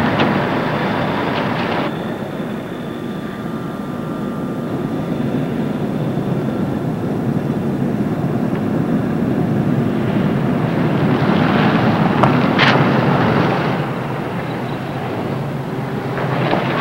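Steady engine rumble that swells toward the middle and eases off near the end, with a few sharp clicks about twelve seconds in.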